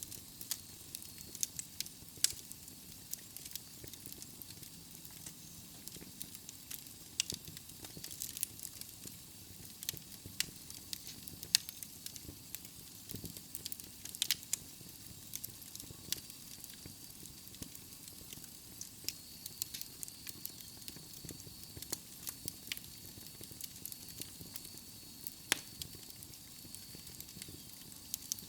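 Wood fire burning in a fireplace: a steady low hiss with sharp, irregular crackles and pops from the burning logs.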